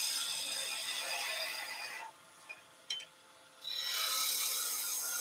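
Skew chisel cutting a spinning spindle on a wood lathe: a steady hissing scrape of the blade on the wood. It breaks off for about a second and a half around two seconds in, with a couple of faint ticks, then starts again.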